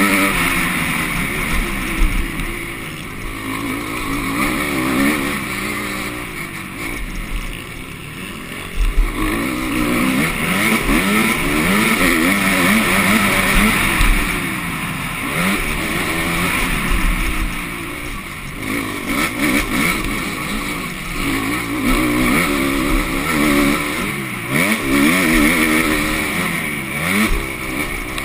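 Motocross bike engine revving up and down again and again as the throttle is opened and shut through the corners and jumps, heard close up from a camera on the bike. There are a couple of sharp knocks, about two seconds and about nine seconds in.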